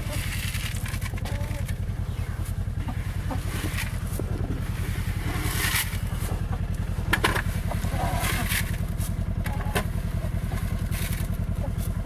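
A small utility vehicle's engine idling steadily. A few short rustles and scrapes come around the middle, as chicken feed is scooped and poured from a plastic bucket.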